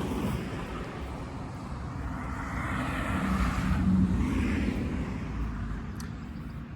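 A vehicle passing by: a rumble with tyre-like hiss that builds to its loudest about four seconds in and then fades.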